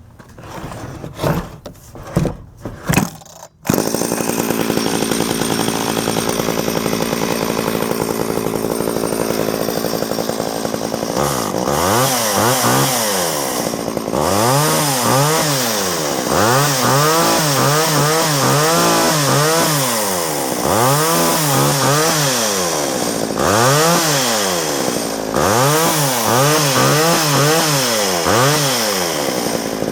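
Homelite 240 two-stroke chainsaw pull-started with a few short pulls, catching about three and a half seconds in and running steadily. From about eleven seconds it is revved repeatedly, its pitch rising and falling every couple of seconds. It runs on a freshly rebuilt carburettor that has not been tuned yet.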